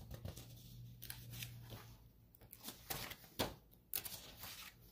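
Sheets of printed paper rustling as they are picked up and leafed through, in a handful of short, soft scrapes and crinkles.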